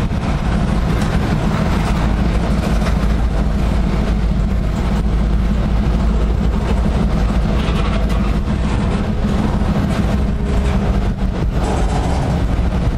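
Freight cars rolling past on the rails: a steady rumble of steel wheels with light clicking and clatter.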